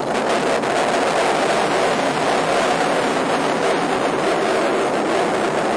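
Steady road and wind noise of a moving car, heard from inside the cabin through a dashcam.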